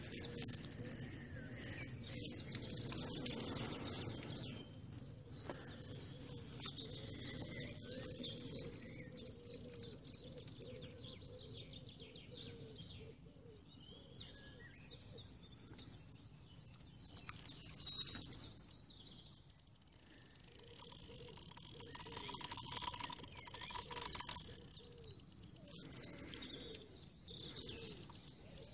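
Small birds chirping and singing on and off, over a low outdoor rumble that is heavier in the first few seconds.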